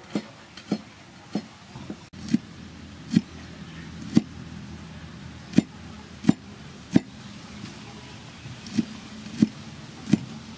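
Kitchen knife slicing small green chilies on a wooden chopping board, each stroke a sharp knock of the blade on the wood, about a dozen strokes at an uneven pace of roughly one a second.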